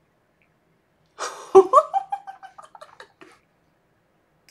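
A woman's short laugh starting about a second in: a breathy burst followed by a run of quick, fading giggles.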